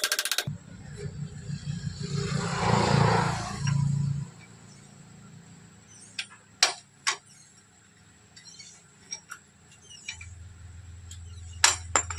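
A few sharp metallic clinks from work on a motorcycle's steering-head bearing cups, two close together about six and a half seconds in and two more near the end. A low rumbling hum swells over the first few seconds and comes back near the end.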